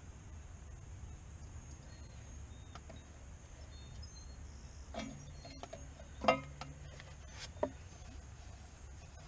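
Three short metallic knocks and clinks, the middle one loudest with a brief low ring, from tools and parts being handled during work on the tractor's lift-arm housing. They sit over a faint steady low hum.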